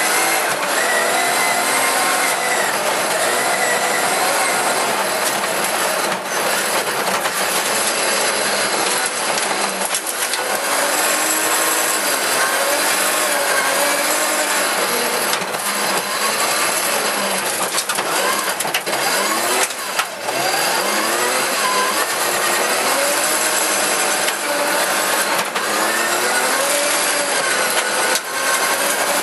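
Rally car at speed on a gravel stage, heard from inside the cabin: the engine's revs rise and fall again and again through gear changes over a loud, harsh, steady noise of gravel and tyres, with scattered short knocks.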